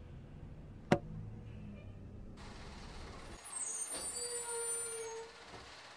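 Labrie Automizer garbage trucks: a low engine rumble with one sharp bang about a second in, then from about three and a half seconds a steady high whine with hissing over it for about a second and a half.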